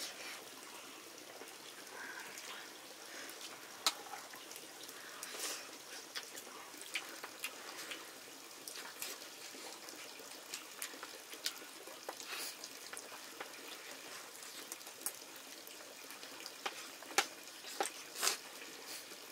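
Kitchen sounds: a steady hiss with many scattered clinks and knocks of pots and utensils, a few louder ones near the end.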